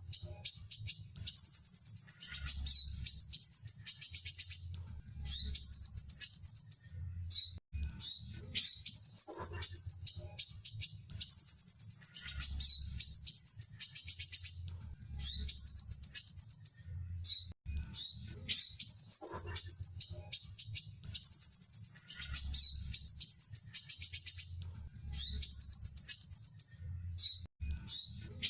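Sunbird singing: rapid, high-pitched trilled phrases of one to two seconds each, repeated one after another with short breaks.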